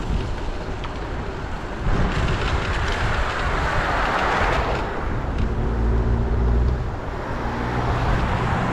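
Road and traffic noise heard from a moving bicycle. A car passes on the wet, slushy street with a hiss that rises and falls about two to five seconds in, followed by a low steady engine hum.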